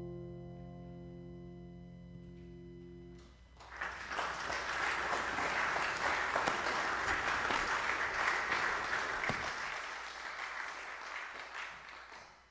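The last held notes of a flute and piano piece die away, and about three and a half seconds in the congregation breaks into applause, which fades near the end.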